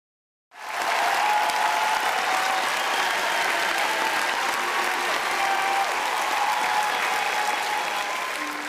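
A crowd applauding, with a few voices calling out over the clapping. It starts about half a second in and begins to fade near the end.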